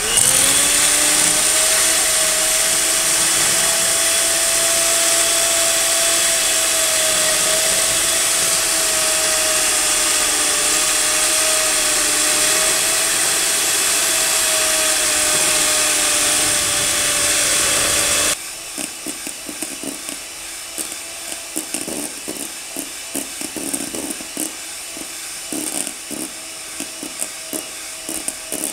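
Handheld electric mixer spinning up and running at a steady high whine as its beaters whisk a thin cake batter in a stainless steel bowl. About 18 seconds in it turns abruptly quieter, with irregular clicking as the beaters work through thick meringue.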